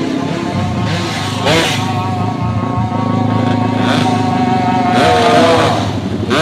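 Engine running with a steady note through a loud exhaust, revved up briefly about a second and a half in and again near five seconds, with sharp cracks at each blip: the exhaust popping like firecrackers.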